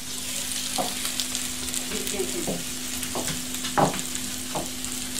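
Chicken breast pieces sizzling on a round electric indoor grill. The steady hiss comes up at the start as the grill's dome lid is lifted off, over a steady low hum, with a short knock about four seconds in.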